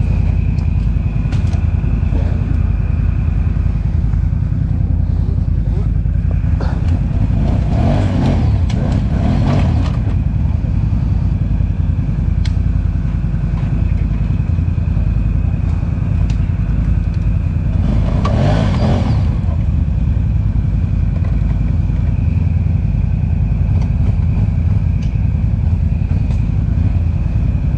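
ATV engine running steadily at low speed, with two brief swells of louder rushing noise, one about eight seconds in and one about eighteen seconds in.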